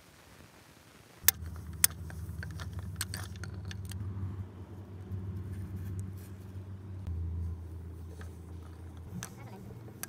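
A low, steady engine hum starts about a second in, with sharp metallic clicks and clinks of tools on steel, two loud clicks near the start and a few more near the end.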